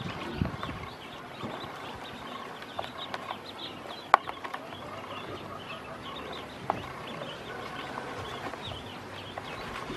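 Ducklings peeping continually while they feed and drink, many short high chirps overlapping. A couple of sharp taps stand out, one about four seconds in and another near seven.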